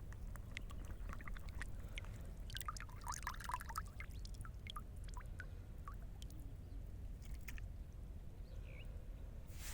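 Water trickling and dripping with scattered small clicks and plops, busiest a few seconds in, over a low steady rumble.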